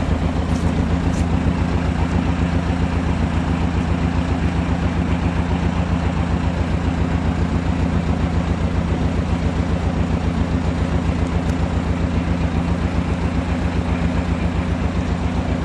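An engine running steadily at low revs, with an even, fast pulse throughout.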